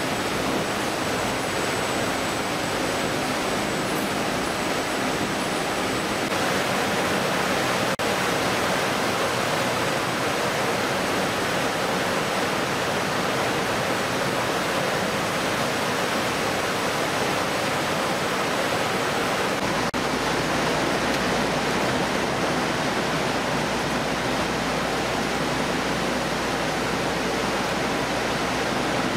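Steady rushing noise of running water and machinery on a fish-processing line, with water spraying over fish in a stainless steel trough. A deeper low rumble joins about two-thirds of the way through.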